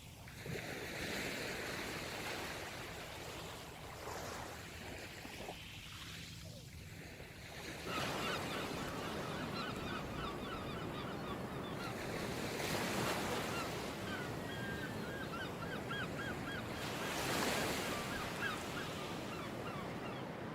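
Ocean surf washing on a shore, swelling every few seconds. From about eight seconds in, a bird calls over it in rapid, short, repeated notes.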